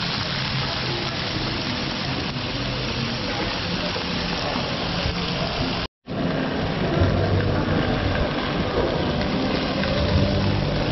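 Steady sizzling hiss of meat cooking, with market hubbub behind it. The sound drops out completely for a moment about six seconds in and comes back fuller and busier.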